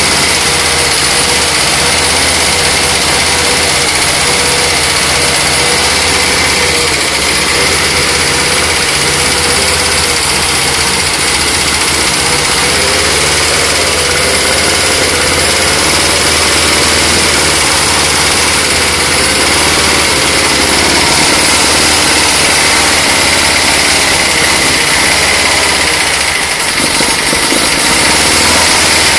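Freshly rebuilt Jowett Javelin flat-four engine running steadily on a test stand in its first start-up, its speed held by hand at the carburettor and wavering slightly.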